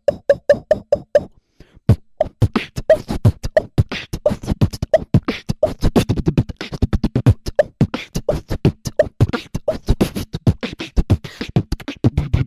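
Beatboxer's vocal popping sound, made as a very short, very high-pitched cough, repeated about four times a second. After a short pause, a fast beatbox pattern follows, with the pops mixed among deeper, lower beatbox sounds.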